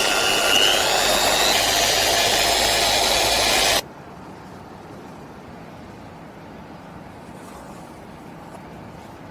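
Electric polisher running with a firm cutting pad on an acrylic windshield to work out deep scratches: a loud, steady whine that rises slightly in pitch about a second and a half in. It stops suddenly at about four seconds, leaving a faint steady background hum.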